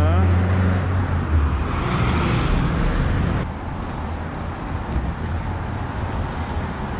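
City street traffic at an intersection: vehicle engines running with a steady low hum over road noise. About three and a half seconds in, the sound drops suddenly to quieter, even street noise.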